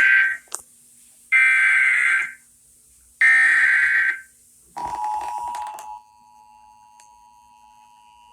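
Emergency Alert System SAME header: the tail of one digital data burst, then two more one-second bursts a second apart, which encode the flash flood warning that follows. About five seconds in, the two-tone EAS attention signal starts. It is loud for about a second and then carries on much quieter.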